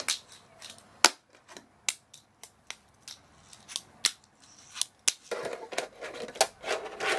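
A fingerboard doing tricks on tabletop ramps: about a dozen sharp, irregular clicks and clacks as the small deck and its wheels pop, hit and land on the table and ramps. A rough rolling noise comes in for the last two seconds as the board is pushed along a box.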